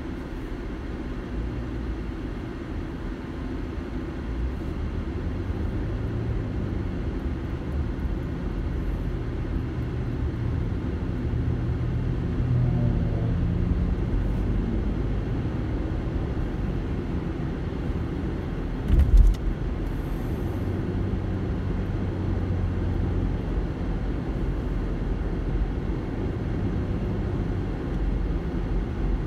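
Road and engine noise inside a moving car: a steady low rumble, with the engine hum swelling twice as the car speeds up. About two-thirds of the way through comes one brief, loud thump.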